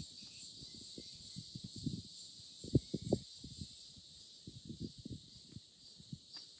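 Steady high-pitched chorus of insects, with soft, irregular low knocks and rustles close by and a few louder ones about three seconds in.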